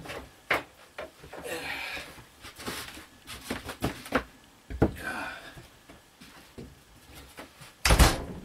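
A large sheet of OSB being handled and shifted about: a string of knocks and short scrapes, with a low thud about five seconds in and a heavier, louder thud near the end.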